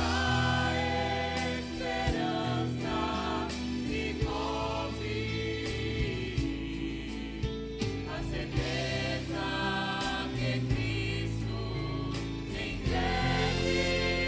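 Church vocal group of mixed voices singing a gospel song together over instrumental accompaniment.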